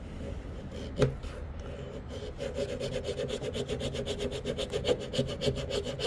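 Rocktrail pocket knife blade shaving curls off a wooden stick: a scraping with a sharp click about a second in, turning from about two seconds in into a fast run of small ticks as the blade draws down the wood. The blade could be sharper.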